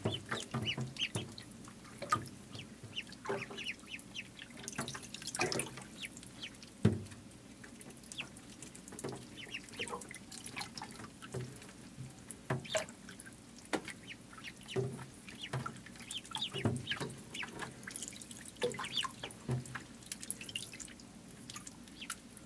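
Many ducklings peeping in short, high chirps all through, with small splashes and drips as they paddle in shallow water.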